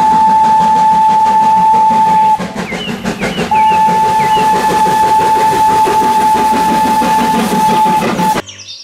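Steam locomotive whistle, on an engine dressed as Thomas the Tank Engine, blowing two long steady blasts: the first breaks off about two and a half seconds in and the second starts about a second later and runs until near the end. The rumble of the running train sounds underneath, with a few short high chirps in the gap between blasts.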